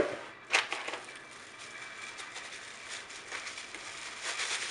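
Kitchen handling noises: a sharp click at the start and another about half a second in, then faint crackling and light scraping with small ticks.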